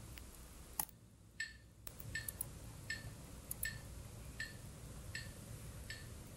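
Faint, evenly paced ticking, about four ticks every three seconds, with two sharper clicks in the first two seconds.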